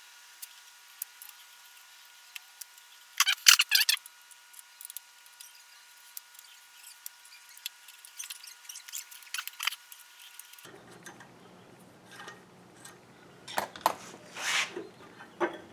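Scattered metal clicks and clinks of hand tools and machine parts being handled during a machine teardown, with a short burst of rapid rattling clicks about three seconds in and a few louder clinks near the end.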